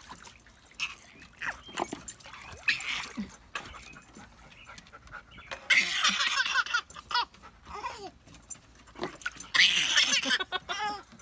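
A dog whining in high, wavering bursts, loudest about halfway through and again near the end.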